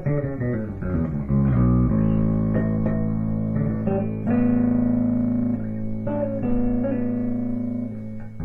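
Electric bass (Warmoth Jazz Bass) played clean through a Music Man HD-130 amp and Avatar 2x12 cab, with the 8 Bit Duck bit-crusher pedal bypassed: a quick run of short notes for about two seconds, then longer sustained notes.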